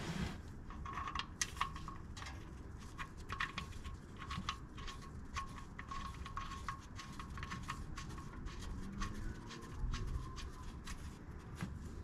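Old engine oil dripping from the sump drain hole of a Ford Barra inline-six into an oil drain pan: a quick, irregular run of drips, each a small click with a short ring, as the sump empties.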